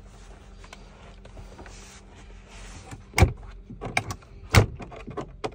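Truck cab's fridge drawer being pushed shut and latched: two sharp clunks, about three and four and a half seconds in, with lighter clicks between them.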